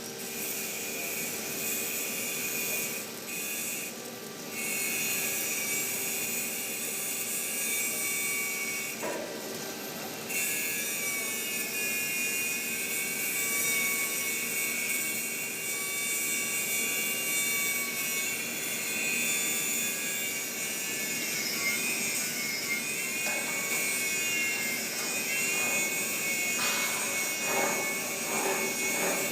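Electric arc welding: the arc gives a steady hiss, dipping briefly about four seconds in and again around nine to ten seconds in.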